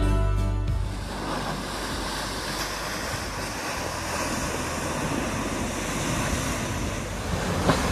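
Ocean surf breaking over and against the low concrete wall of a seaside rock pool, a steady rushing wash of waves.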